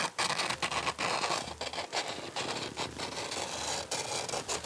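Knife blade scraping a length of cane (carrizo) being shaped into a flute, in a run of short strokes.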